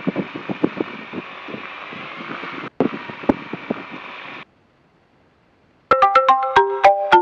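A radio transmission of hiss and crackling clicks, with no words, that cuts off sharply after about four and a half seconds. After a short silence, a marimba-style ringtone tune of quick struck notes starts near the end.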